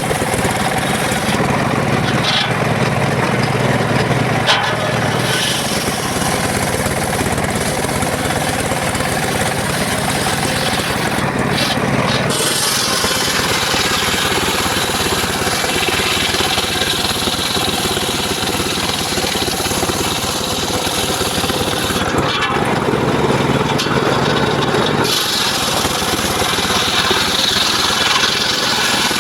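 Engine-driven circular saw running steadily and sawing mahogany wood, its tone shifting a few times during the cut.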